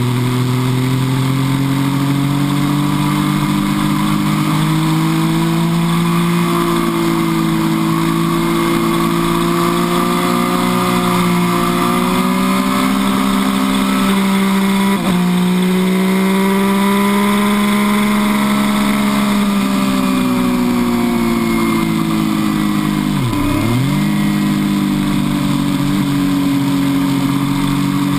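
MV Agusta F3 800's three-cylinder engine running hard on a race track, heard from on the bike, its pitch slowly rising and falling through the corners. There is a short break in the engine note about halfway through and a quick drop and recovery in pitch near the end.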